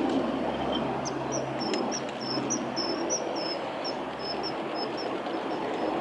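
Common kingfisher giving a series of short, high-pitched piping calls, about two to three a second, over a steady low background rumble.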